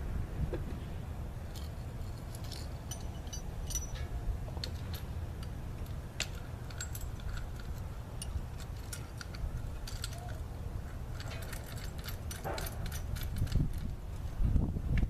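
Scattered light clicks and clinks, like small hard objects being handled, over a steady low rumble.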